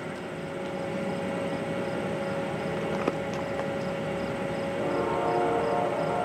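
Distant rumble of an approaching diesel passenger train. About five seconds in, its horn begins sounding from afar, a chord of several held notes.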